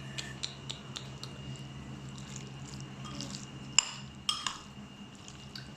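Cutlery clinking and scraping against a dish of macaroni and cheese as it is eaten: many small light clicks, with a sharper clink nearly four seconds in and a few more just after, over a steady low hum.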